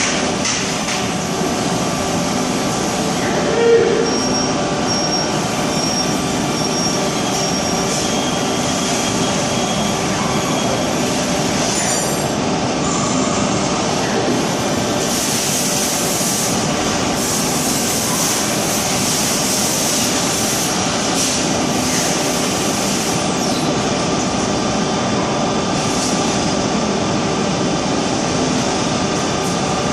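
CNC lathe turning a part with the coolant shut off: a steady run of spindle and cutting noise with a few held tones. A brief louder tone sounds about 4 s in, and a higher hiss comes in from about 15 to 23 s in.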